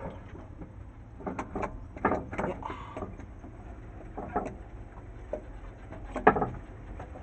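Irregular metal knocks and short scrapes of a rebuilt starter motor being worked by hand into its mount on the engine, with the loudest knock about six seconds in.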